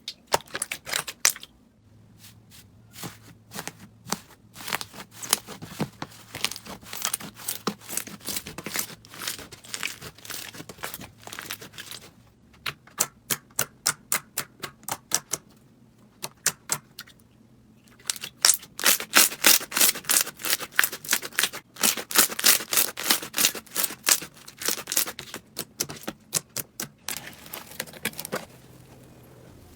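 Slime being squeezed and poked, giving runs of sharp crackling clicks and pops with a few short pauses; the clicking is densest and loudest about two-thirds of the way in.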